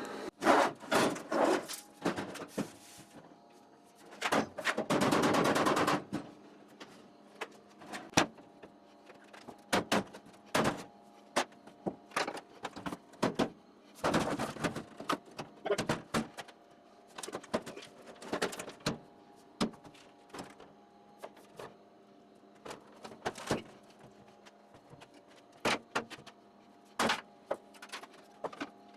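Sledgehammer blows on the corner of a steel Kobalt five-drawer tool chest, knocking its bent carcass back into square: a long string of sharp bangs at uneven intervals. Near the start there is a scraping rasp lasting about a second and a half as the chest is moved.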